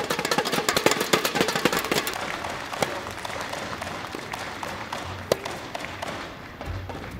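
Spectators clapping after a point in a large indoor tennis arena, the applause thinning and dying away over the first few seconds. About five seconds in, a single sharp crack of a racket striking the ball as play restarts.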